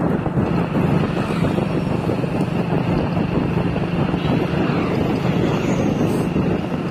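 Motorcycle engine running steadily while riding at an even pace, with wind rushing over the microphone.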